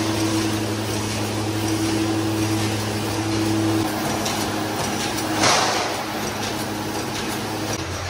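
Wire straightening and cutting machine running with a steady electric hum that shifts about four seconds in, and one loud metallic clank about five and a half seconds in.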